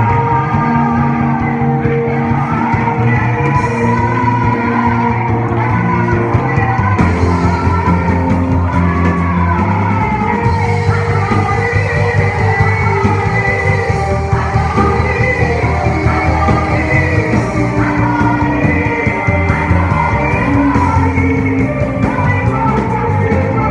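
A live band playing a rock-style Christian worship song with singing, steady and loud throughout.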